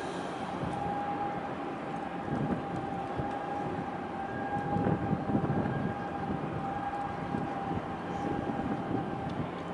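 Distant engine drone from the bulk carrier and its harbour tug across the water, with a steady high whine held on one pitch throughout. Uneven low rumble from wind on the microphone swells about halfway through.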